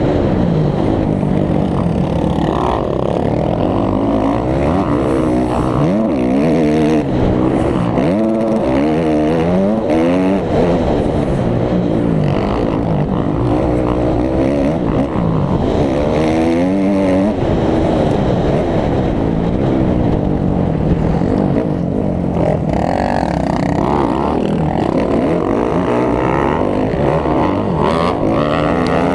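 Dirt bike engine heard close up from the bike itself, revving up and dropping back over and over as the rider works the throttle and gears around the track.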